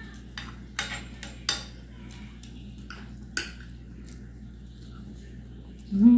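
A metal spoon clinks and scrapes against a plate as food is scooped up, with about five sharp clinks in the first three and a half seconds. Near the end comes a short hum of voice from the eater.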